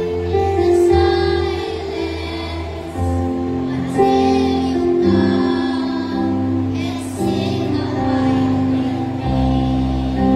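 Children's choir singing a song with instrumental accompaniment and a low bass line.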